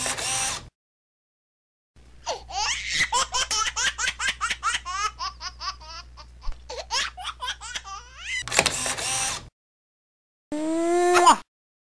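Baby giggling: a long run of short, high-pitched laughs, followed near the end by one short sliding vocal sound. Brief bursts of applause sit at the start and just before the final sound, each cut off abruptly with dead silence between clips.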